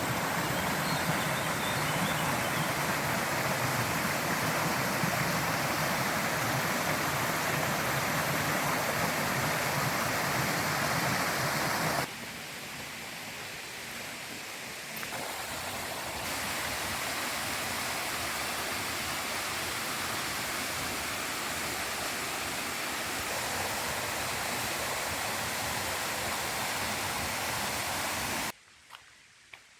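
Wind rushing steadily over the microphone in an exposed high spot. It drops off sharply about twelve seconds in, builds back a few seconds later, and cuts off just before the end.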